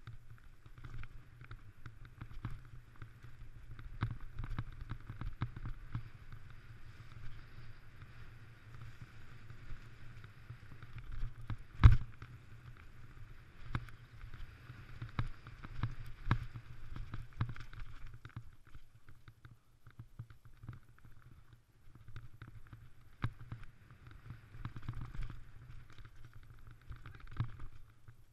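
Mountain bike riding fast over a dirt forest singletrack, heard from a camera mounted on the rider. Tyres rumble and hiss on the trail, and the bike rattles with frequent small knocks. One loud thump comes about twelve seconds in.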